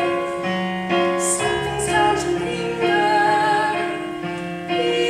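Musical-theatre song sung by a woman with piano accompaniment, on long held notes.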